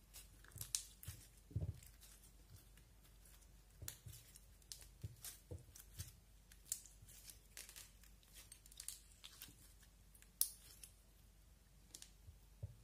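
Glossy slime being kneaded, squeezed and stretched by hand, giving irregular sticky clicks and small pops, the sharpest about ten seconds in.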